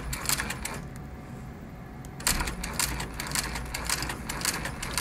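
Singer 153W103 walking-foot cylinder-arm sewing machine stitching through stacked layers of veg-tan leather: a rapid clatter of needle and walking-foot strokes over a steady motor hum. The stitching eases off about a second in and picks up again, louder, a little after two seconds in.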